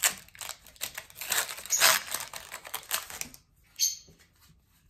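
Foil trading-card booster pack crackling and crinkling in a run of crisp ticks as it is opened and the cards pulled out, stopping about three and a half seconds in, with one short rustle just before four seconds.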